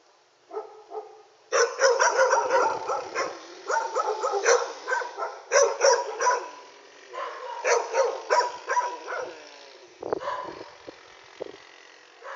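A dog barking in quick runs of barks with short gaps between them, thinning to a few scattered barks near the end.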